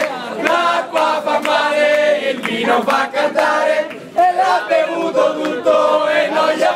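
Crowd of party guests singing an Italian drinking chant together, cheering someone on to drain his glass, with hand claps throughout.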